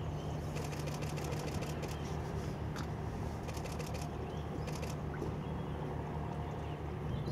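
Steady low engine hum, with two short spells of fast, faint ticking, about half a second in and again around three and a half seconds.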